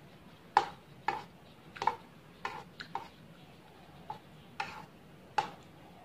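Metal spoon and fork clinking and scraping against a plate of fried noodles as the food is gathered up, about nine sharp clinks at uneven intervals, each with a brief ring.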